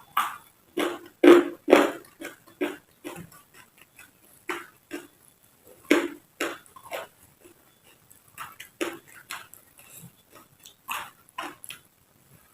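Close-miked chewing and crunching of raw vegetables, an irregular run of wet, crisp mouth sounds with short pauses between bites.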